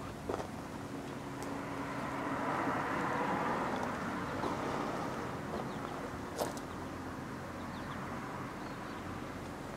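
A passing road vehicle, its noise swelling over a couple of seconds and fading away again, with a few footsteps on gravel.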